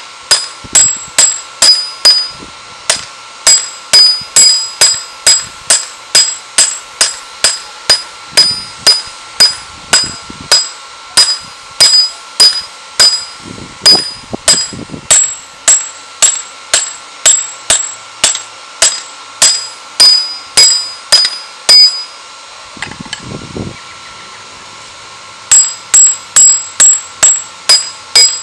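Hand hammer striking a red-hot steel spearhead on a round block anvil, about two blows a second, each leaving a high metallic ring. The blows stop for about three seconds near the end, then start again.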